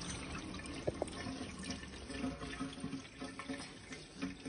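Tap water running into a stainless-steel sink as sliced eggplant is rinsed in a metal colander under the stream, with a few light knocks about a second in.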